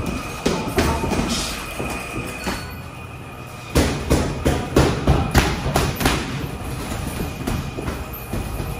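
Gloved punches landing on heavy bags and focus mitts in a boxing gym. A few scattered thuds come early, then a quick run of sharp hits starts about four seconds in, over steady background gym noise.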